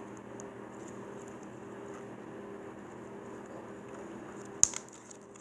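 A small butter slime being squeezed and played with by hand: faint sticky clicks, with one sharp click about four and a half seconds in, over a steady low hum.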